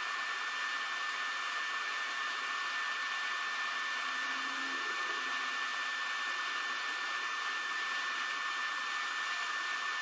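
TIG welding arc on stainless steel: a steady, even hiss with a faint thin high whine in it, unbroken while a multi-pass bead is laid with a side-to-side weave.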